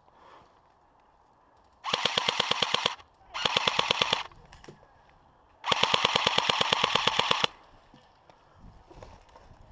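Airsoft electric gun firing on full auto: three rapid bursts of about a dozen shots a second, the last and longest nearly two seconds.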